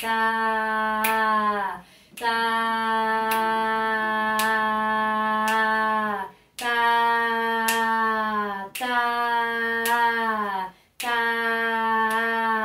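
A woman's voice holding the syllable 'tá' on one steady pitch for each note of a rhythm-reading exercise: half notes held for two beats and a whole note held for four, the pitch dipping slightly as each note ends. A sharp click marks every beat, about one a second.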